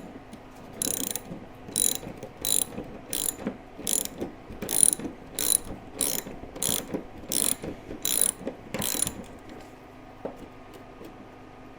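Ratchet wrench clicking through about a dozen strokes, roughly one every two-thirds of a second, driving in a hood hinge bolt; the ratcheting stops about nine seconds in.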